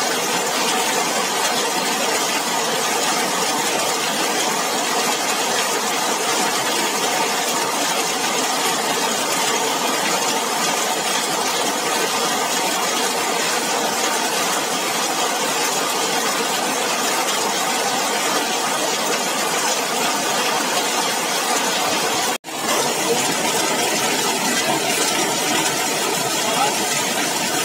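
Heavy rain falling on a zinc roof: a dense, steady patter. The sound cuts out for a split second about 22 seconds in, then resumes unchanged.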